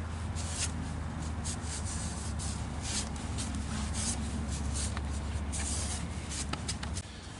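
A cloth rubbing and wiping over a freshly machined cast-iron lathe backing plate, scratchy and uneven, over a steady low machine hum that stops about seven seconds in.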